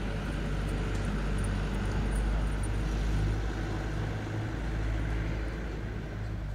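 Steady low outdoor rumble with a faint hum running through it, like traffic or a running motor.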